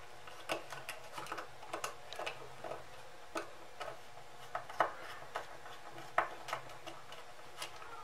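Irregular light clicks and ticks of stiff wires and a plastic relay socket being handled while a wire is fed into a terminal.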